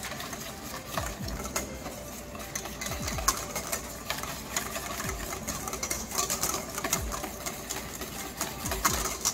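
Wire balloon whisk beating warm custard in a stainless steel bowl: a rapid, continuous clatter of the wires against the metal, with a dull knock from the bowl about every two seconds. The whisking is dissolving drained gelatin into the thickened custard base.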